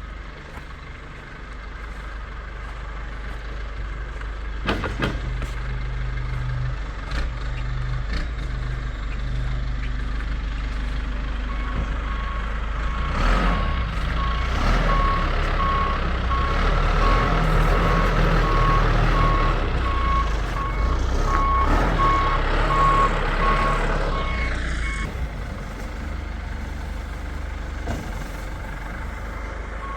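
Heavy truck reversing, its backup alarm beeping steadily over a low engine rumble. The engine grows louder midway, and the beeping stops shortly before the end, then starts again right at the end.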